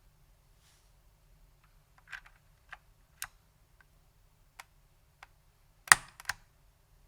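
Datacomp DFK-191 keyboard with SKCM White Alps switches and ABS keycaps, typed on in scattered single keystrokes that start about two seconds in. Each key gives a sharp click. The loudest pair of clacks comes near the end.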